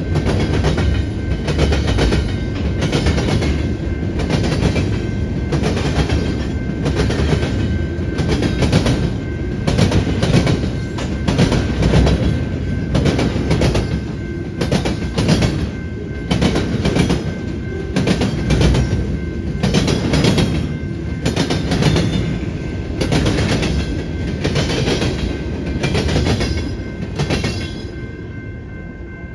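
Freight train's wheels banging across a cut-rail railroad diamond: a steady run of loud clacks, about two a second, over the rumble of the rolling cars. The clatter drops away near the end as the last car clears the crossing.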